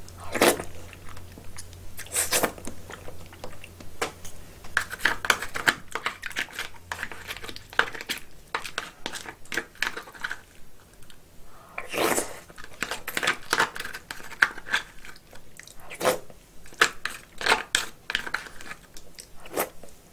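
Close-miked eating of steamed snow crab: chewing, with sharp clicks and crackles of crab shell being broken and picked apart in clusters.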